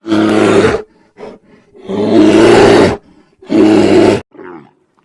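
A large animal roaring: three loud, rough roars, the middle one the longest, with short quieter grunts between them.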